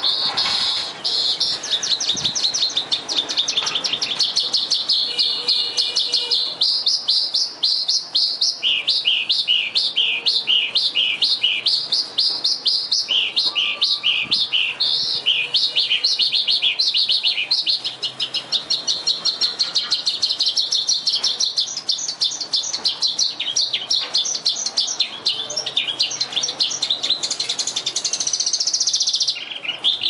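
Oriental skylark singing a long, unbroken song of rapid, high-pitched trills and quickly repeated chirping notes, with a short break near the end before it resumes.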